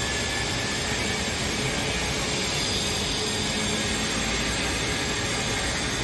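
Luggage trolley wheels rolling over a tiled floor: a steady rumbling noise, with the even hum of a large terminal hall behind it.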